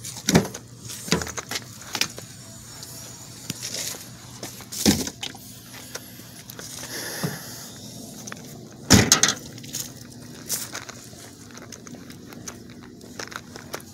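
Footsteps on asphalt with scattered scuffs and knocks, the loudest a sharp thump about nine seconds in.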